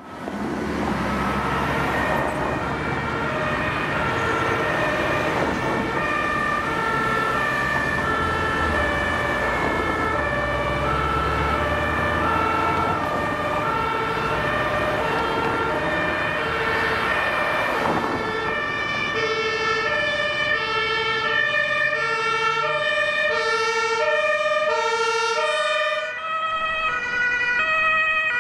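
Two-tone Martinshorn siren of an emergency doctor's car on an emergency run, alternating between a low and a high note about once a second. Engine and road rumble is heard for the first half, and the siren notes shift near the end as the horn is switched.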